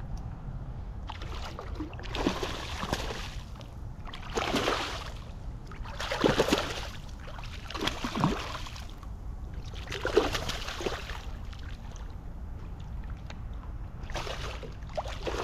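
Water sloshing and swishing around a small Gheenoe skiff in separate strokes roughly every two seconds, over a steady low rumble.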